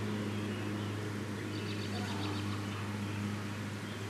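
Steady low hum over faint outdoor background noise, with a few faint high chirps about halfway through.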